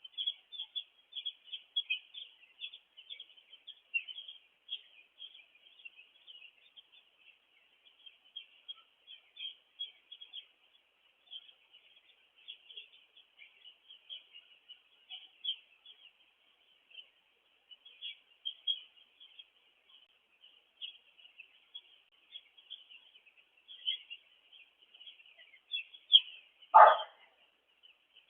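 A flock of four-day-old chicks peeping continuously, many short high chirps overlapping. About a second and a half before the end comes one brief, louder sound.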